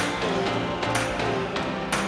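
Background music with a steady beat, a sharp hit about once a second over sustained notes.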